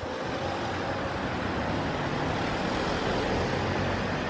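Road traffic on the street: a steady noise of passing motor vehicles.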